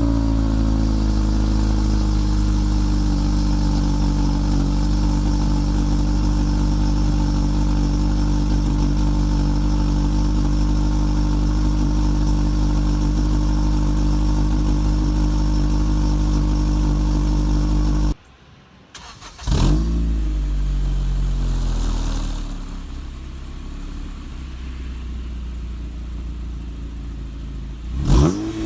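Ninth-generation Honda Civic Si's 2.4-litre four-cylinder engine, breathing through a Skunk2 downpipe on the stock cat-back exhaust, idles steadily just after starting, and the idle settles slightly lower in the first couple of seconds. After a brief break about two-thirds of the way in, the engine is revved up and back down, idles more quietly, and revs again near the end.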